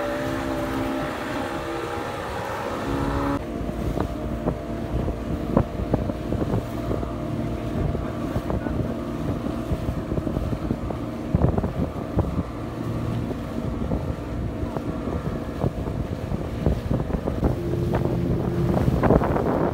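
Speedboat engines running with a steady drone, mixed with wind buffeting the microphone. The engine note changes abruptly about three seconds in.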